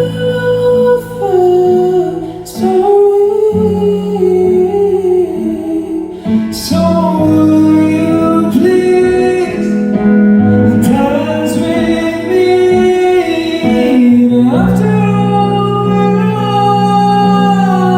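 Live band music with singing: held chords and a sung melody line, with a few cymbal or drum hits.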